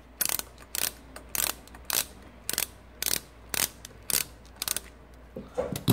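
Socket ratchet on an 8 mm socket clicking about twice a second as it backs out a cam chain tensioner bolt on a GY6 scooter engine.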